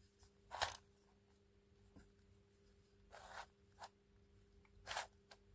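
Plastic twisty puzzle cube being turned by hand: a handful of short plastic clicks and scrapes as its layers are worked, four clear ones with the longest a little after three seconds in, over a faint steady hum.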